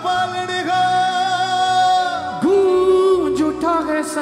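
Hindi Christian worship song performed live by a choir and band with harmonium and keyboard; the singers hold two long notes, the second lower than the first.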